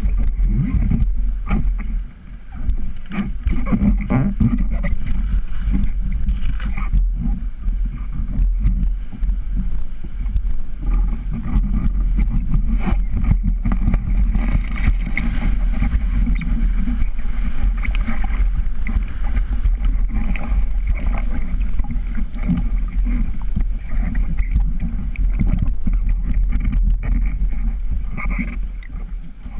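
Rushing river water with a steady low rumble of wind on the microphone, broken by scattered short splashes or knocks.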